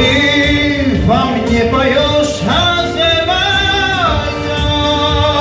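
A man singing an Azerbaijani song into a microphone, his voice wavering and gliding on long ornamented notes over amplified instrumental backing with a steady beat.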